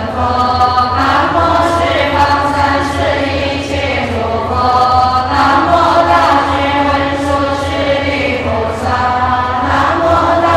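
Many voices chanting together in sustained, slowly gliding notes, as in Buddhist liturgical chanting by monks and nuns, over a steady low hum.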